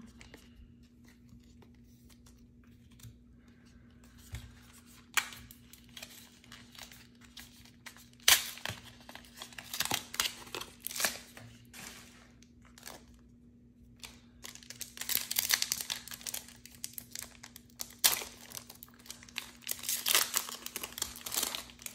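A Pokémon card blister pack being torn open by hand: its cardboard and plastic packaging tear and crinkle in irregular bursts. There is a sharp snap about eight seconds in, and the crinkling is busiest in the second half.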